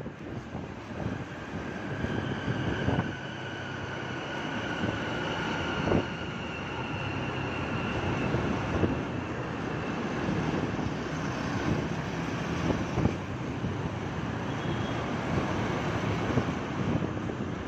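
Motorcycle ride in traffic: wind rushing over the microphone over the running engine, with a faint high whine that slowly drops in pitch between about two and eight seconds in.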